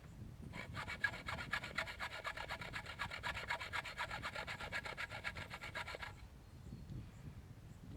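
A hand tool rasping on wood in fast, even strokes, about eight a second, for about five seconds, then stopping.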